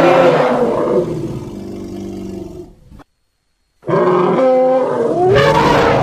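Sumatran elephant calls: a loud pitched roar that drops into a lower, quieter rumbling call and fades out. After a short dead-silent gap between recordings, a second loud call starts about four seconds in.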